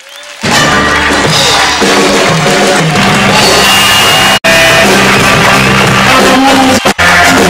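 Loud live band music with drums and singing, cutting out for a moment at the start, again about four seconds in, and twice near the end.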